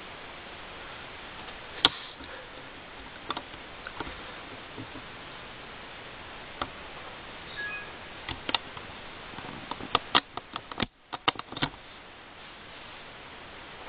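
Steady hiss of an old home-video recording with scattered small clicks and taps. One sharper click comes about two seconds in, and a quick run of clicks falls between about eight and a half and eleven and a half seconds in.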